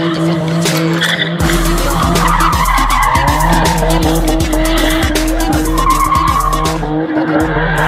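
Car doing a burnout: engine held at high, steady revs while the driven tyres spin and screech, the sound thickening about a second and a half in and easing again near the end.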